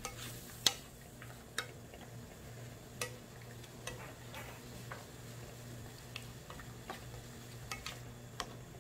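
Wooden spatula stirring in a nonstick frying pan of soy-braised king oyster mushrooms, knocking against the pan in irregular sharp clicks, the loudest about a second in. A steady low hum runs underneath.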